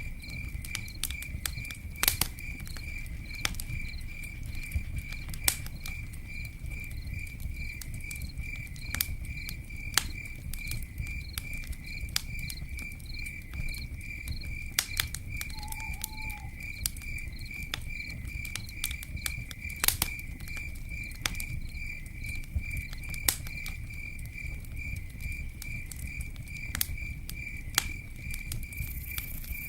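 Campfire crackling, with irregular sharp pops and snaps over a low steady rumble of the burning fire. Behind it an insect chirps steadily in a fast, even pulse.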